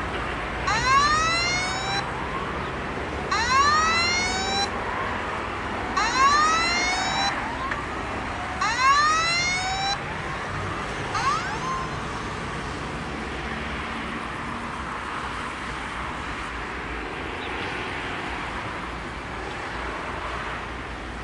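Level crossing warning signal sounding a rising electronic wail four times, about every two and a half to three seconds, with a short last note about eleven seconds in, while the barriers lower to close the road for an approaching train. After it stops, only steady background noise remains.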